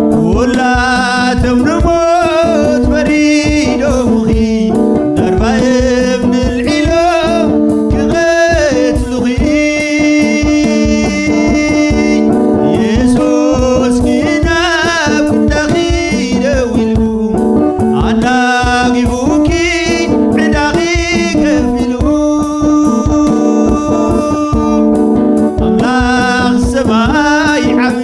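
A man singing a Tigrinya hymn (mezmur) over steady held chords, the voice in phrases with a short instrumental stretch in the middle.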